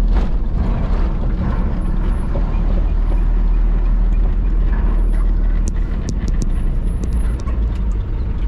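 Steady low rumble of a vehicle driving along a paved highway, with a quick run of sharp clicks or rattles about six to seven seconds in.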